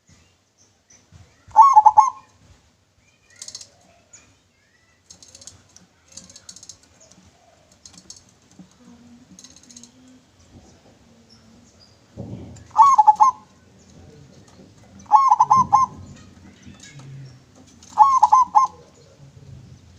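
Local zebra dove (perkutut) cooing in clear song. Four short rolling phrases of a few notes each: one about two seconds in, then three in close succession from about twelve seconds on. Faint high chirping from other small birds in between.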